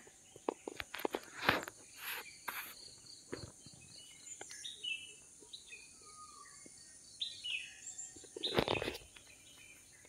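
Birds giving short chirping calls over a steady high insect drone, in a tropical plantation. There are light rustles and scuffs in the first few seconds, and a louder rustle about eight and a half seconds in.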